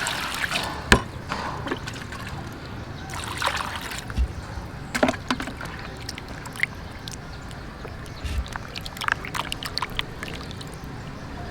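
Water sloshing and trickling, with scattered sharp clicks and knocks, the loudest about a second in.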